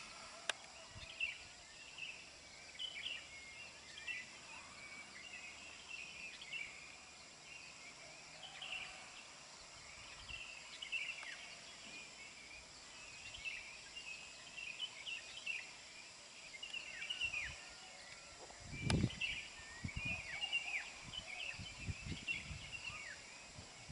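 Night-time outdoor ambience: a steady high insect drone with many short, falling chirps from small animals calling. A sharp bump comes about three-quarters of the way through, followed by a few low rumbles.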